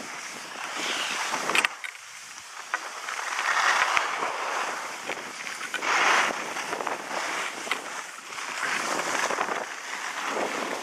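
Skis hissing and scraping over packed snow, swelling and fading with each turn every two to three seconds, with wind on the microphone. A sharp click sounds about one and a half seconds in.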